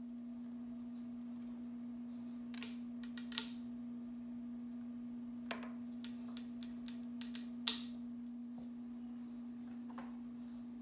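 Hose clamp being worked onto clear aquarium tubing by hand: a scattering of sharp clicks, most between about two and eight seconds in, over a steady low hum.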